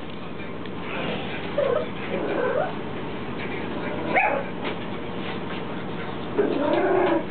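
Dogs whining and yipping in short, excited calls a few times, one rising sharply about four seconds in and a longer wavering whine near the end.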